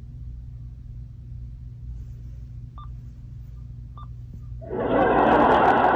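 Two short faint beeps, then near the end a sound effect of a crowd clapping and cheering starts suddenly, played from an Accent AAC device's speaker over a steady low hum.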